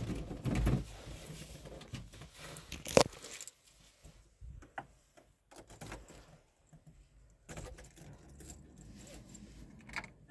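Keys jangling, with scattered small clicks and knocks as a car key is handled at the ignition; the loudest is a sharp click about three seconds in. The engine is not running.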